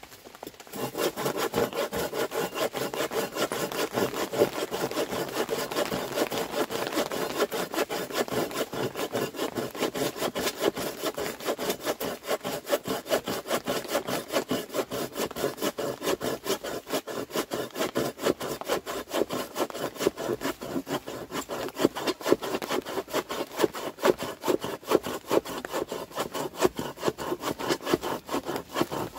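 Continuous rhythmic rasping strokes, several a second, starting abruptly about half a second in.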